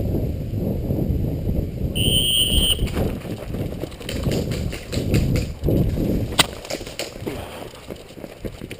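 Rough low rumble on the microphone with scattered scuffing clicks of movement. A short high beep sounds about two seconds in, and a single sharp crack comes about six seconds in.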